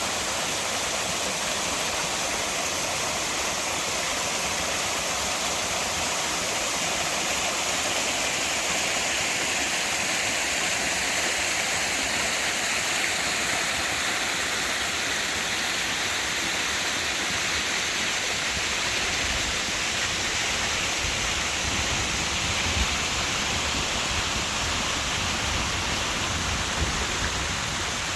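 Steady rush of flowing water, an even unbroken noise, with a deeper low rumble joining in about two-thirds of the way through.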